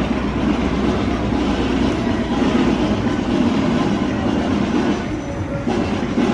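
A steady, loud low rumble with no clear individual events, easing off briefly about five seconds in.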